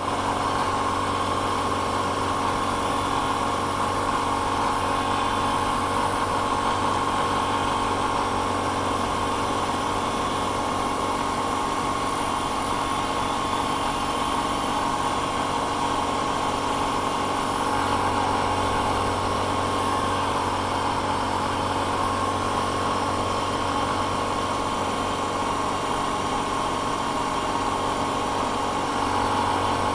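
Vertical milling machine running with its end mill making a finishing cut in a brass hand wheel: a steady mechanical hum with a constant whine.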